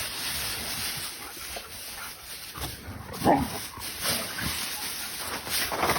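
A domestic animal's short calls over steady background noise, the loudest one about three seconds in.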